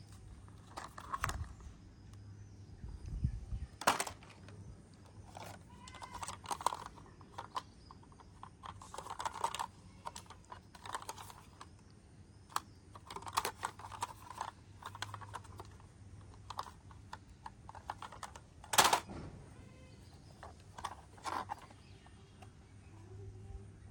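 Plastic toy vehicles clicking and clattering as they are handled and set down, with a sharper knock a few seconds before the end.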